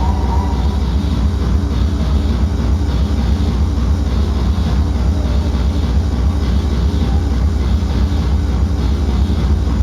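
Hard dance music (harder-styles hardcore) played loud over a club sound system, recorded overloaded and distorted, with a heavy, unbroken bass.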